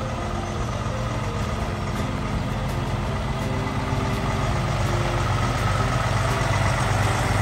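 Soil delivery truck's engine running steadily, growing gradually louder over several seconds.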